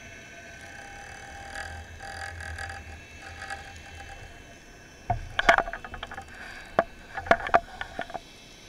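Underwater sound close to a speargun: a steady faint hum, then from about five seconds in a run of sharp clicks and knocks close to the microphone.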